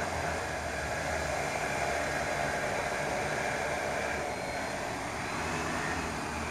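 X8 Renegade multirotor drone's motors and propellers whirring steadily as it flies low and descends toward the ground to land.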